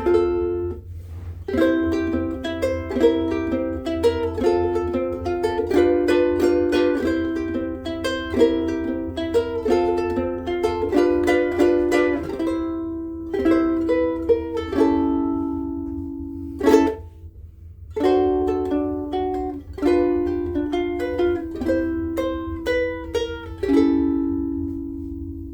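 Soprano ukulele strung with UkeSA strings being played: a run of picked notes and chords, with a short break about two-thirds of the way through before the playing resumes.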